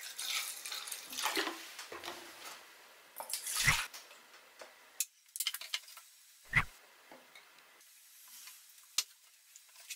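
Liquid poured from a plastic bottle into a clear plastic measuring jug: a splashing pour of water for the first few seconds, then quieter trickles. Two dull knocks, about four and seven seconds in, are the loudest sounds.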